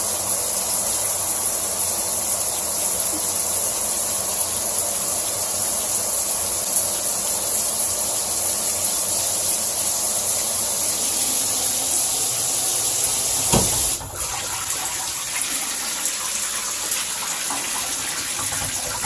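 Water spraying steadily from a Waterpik EcoFlow shower head being tested after installation. About thirteen seconds in there is a brief knock, and the spray then carries on slightly quieter.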